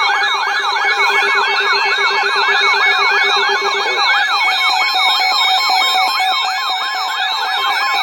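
Electronic weather alert siren sounding for a severe thunderstorm warning: fast warbling sweeps, several a second, from two sirens out of step, over steady beeping tones. A lower steady tone stops about halfway through.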